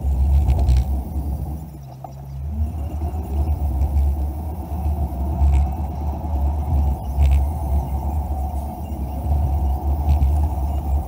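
Car driving, heard from inside the cabin: a steady low rumble of engine and road noise. It dips about two seconds in, then a rising engine note follows as the car picks up speed.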